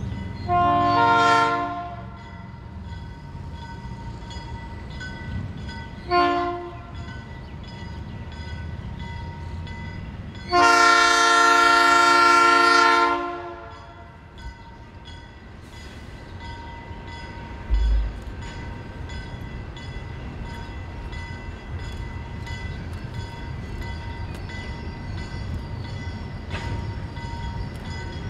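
Diesel locomotive's air horn blowing for a grade crossing: a long blast, a short one a few seconds later, then a long blast of about three seconds, over the steady ringing of the crossing bells and the low rumble of the approaching train. A brief low thump comes about 18 seconds in.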